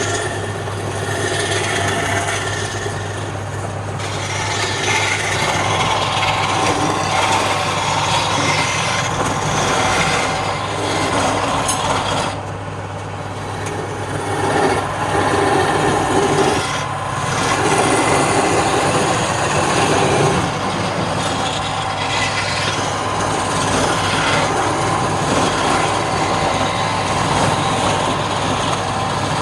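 Wood lathe running with a steady motor hum while a tool or abrasive works the spinning wood, giving a rough scraping noise that eases briefly a couple of times.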